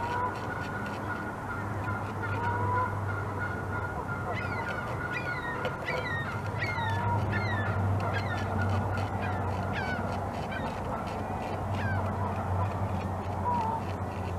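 North American beaver gnawing through a branch: a rapid run of small clicks and scrapes as its incisors cut the wood. Geese honk now and then in the background, and a bird gives a string of short falling calls through the middle.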